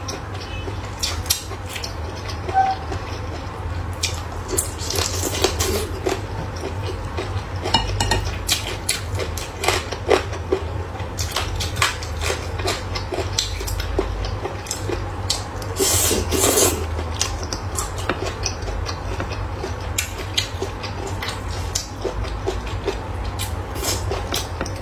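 Close-up eating sounds: chopsticks clicking and scraping against bowls and plates, with chewing in between, over a steady low hum.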